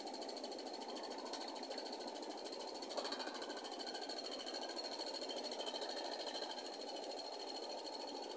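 Electric stand fan running at speed on homemade PVC-pipe blades: a steady rush of air and motor noise with a faint high whine, and one light click about three seconds in.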